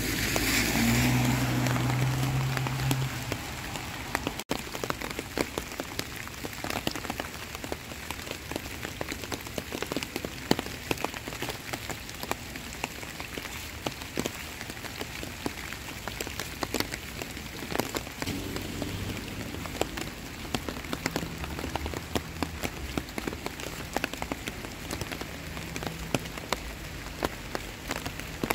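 Heavy rain falling steadily, with many individual drops ticking sharply through the constant hiss. It swells louder with a low hum in the first three seconds.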